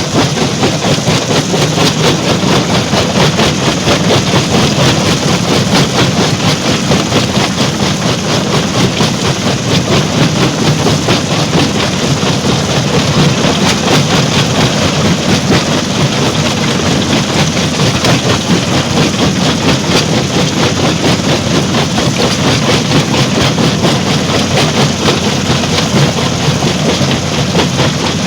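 Stone crusher plant machinery running steadily and loudly, with a dense, continuous rattle of rock being crushed.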